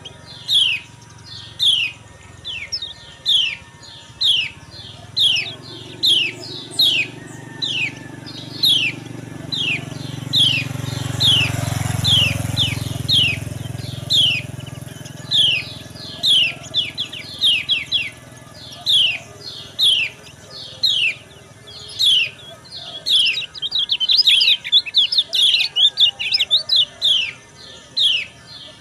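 Lemon-bellied white-eye calling: repeated short, sharply falling high 'ciak' notes about twice a second, crowding into a rapid excited flurry near the end. A low rumble swells and fades about halfway through.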